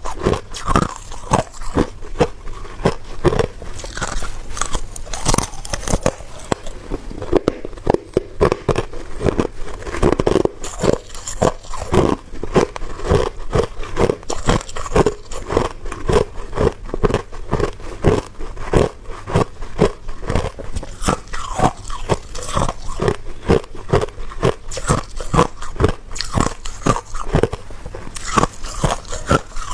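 A person biting and chewing ice, a dense run of sharp crunches several times a second.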